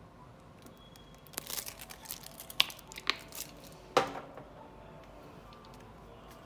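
Plastic handling noise from a HIFU handpiece and its clear plastic cartridge being handled and fitted together: a short stretch of rustling with a few sharp clicks, the loudest about four seconds in.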